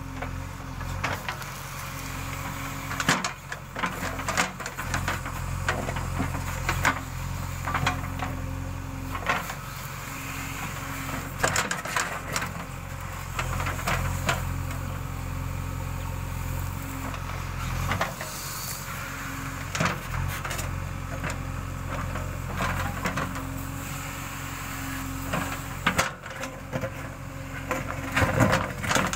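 JCB backhoe loader's diesel engine running steadily under work, with a tone that comes and goes and scattered sharp knocks and clatter throughout.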